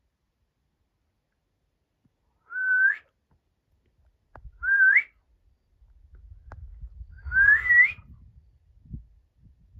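A person whistling three short, loud whistles a couple of seconds apart, each holding a note and then sliding up in pitch. Faint low rumbles and knocks of handling noise come near the end.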